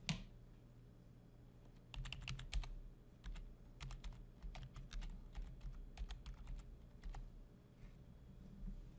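Typing on a computer keyboard: a run of quick, irregular key clicks that starts about two seconds in and stops about seven seconds in.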